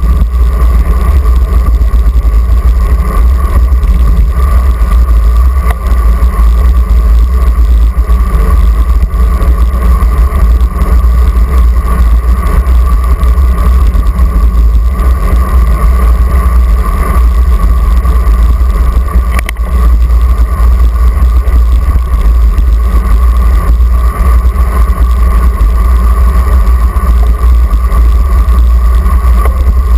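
Steady, loud rumble of wind buffeting a GoPro camera mounted on a moving road bike, mixed with the bike's tyre and road noise, with a constant hum running through it.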